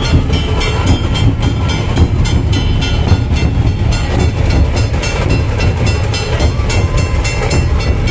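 A troupe of large dhol barrel drums beaten together in a fast, steady rhythm, about four strokes a second, with a deep booming low end and a metallic ringing above it.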